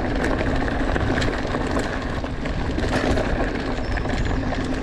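Orbea Occam mountain bike rolling fast down a dirt and stone forest trail: steady tyre and wind noise with frequent small rattles and knocks from the bike over the rough ground.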